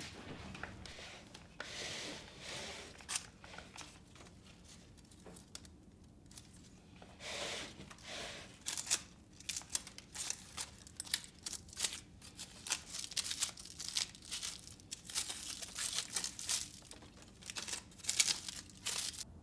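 Crinkling and rustling from something being handled: a run of short crackles that grows busier about eight seconds in, with a couple of smoother rustles earlier.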